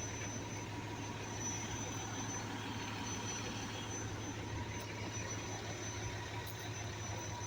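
A vehicle engine idling with a steady low hum under street noise.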